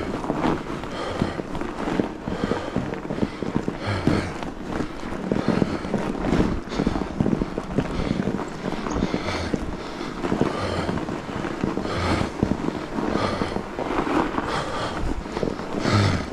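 Fat bike rolling along a packed-snow trail: a steady rush of tyre and wind noise on the microphone, with the rider's hard breathing rising and falling through it.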